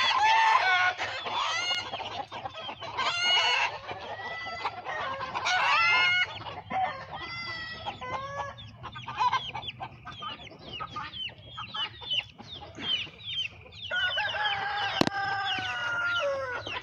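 A flock of chickens calling: many short, high, falling peeps typical of young chicks, mixed with clucking. A long drawn-out call in the last few seconds falls in pitch at its end, like a rooster's crow. There is a single sharp knock about fifteen seconds in.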